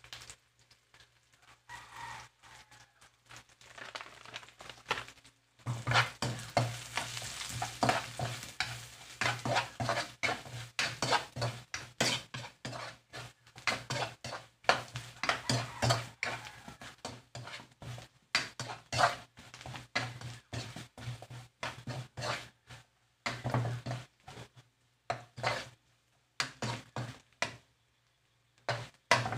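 Metal spoon scraping and clattering against an aluminium wok as onions, garlic and spices are stirred while frying, with sizzling. The stirring starts about six seconds in and pauses briefly near the end.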